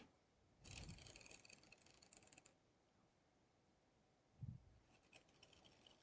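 Faint handling noises from work on a laptop screen assembly: a scratchy rustle lasting about two seconds, a soft low thump, then a shorter scratchy rustle.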